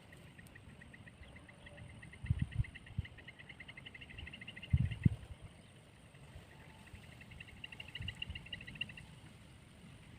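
An insect trilling in fast, even pulses, about eight a second. It sings one long run of about four seconds, then a shorter run a couple of seconds later. A few low thuds come around a third of the way in and near the middle.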